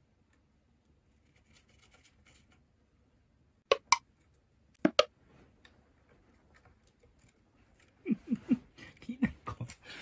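Two pairs of sharp clicks as a cockatiel knocks against the wooden ladder of its play stand, with faint scratching between. A man's low voice starts near the end.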